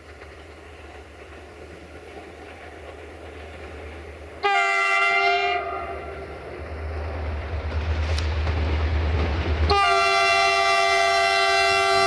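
CFR class 64 diesel-electric locomotive (EMD-engined rebuild of the 060-DA) approaching with its diesel rumbling louder, sounding its air horn: a short blast about four and a half seconds in, then a long blast starting near ten seconds in.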